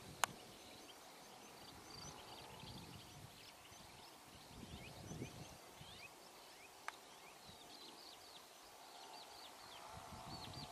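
Faint chorus of small songbirds chirping, many short quick falling notes overlapping. Two sharp clicks cut through it, one just after the start and one about seven seconds in.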